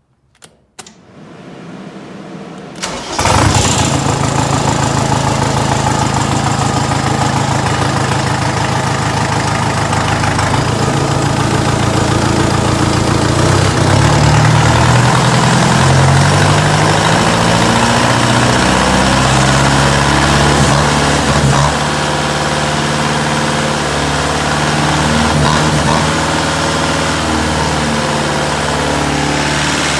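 Diesel engine cranked over and catching about three seconds in, then running with an uneven note that shifts up and down irregularly, which the owner takes for a possible misfire.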